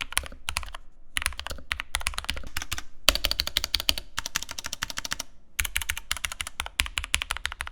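Fast typing on an ASUS ROG Falchion mechanical keyboard with Cherry MX Red linear switches: dense runs of keystrokes with two short pauses, about a second in and about five and a half seconds in.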